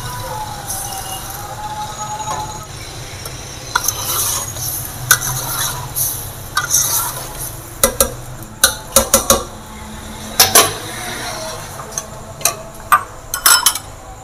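Long metal spoon stirring mutton and water in an aluminium cooking pot, clinking against the pot's sides and bottom over and over, the clinks loudest and quickest together a little past the middle.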